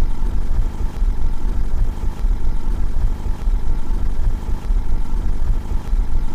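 Car engine idling steadily, heard from outside the car as an even, pulsing low rumble.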